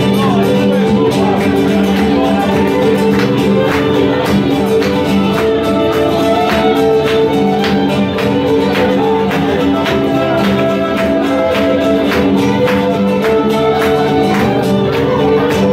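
Live folk band playing an upbeat tune on fiddle and acoustic guitar, with hand claps keeping a steady beat.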